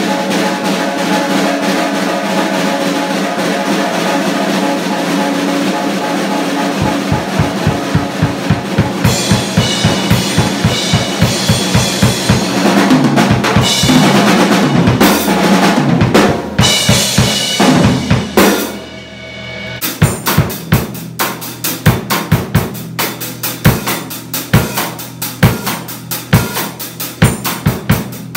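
Acoustic drum kit played freestyle. A dense, busy passage gives way about a quarter of the way in to a rapid run of bass drum strokes. After a short drop in level about two-thirds in, there is a sparser beat of separate kick and snare hits.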